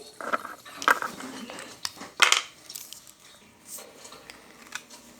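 Small hard plastic pieces clicking and clattering with short rustles as 3D-printed board game pieces are handled, the loudest clatter about two seconds in.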